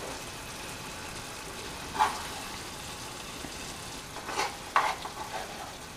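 Masala gravy sizzling steadily in a frying pan as it is spooned over the chicken, with a spoon knocking against the pan about two seconds in and twice more a little past the middle.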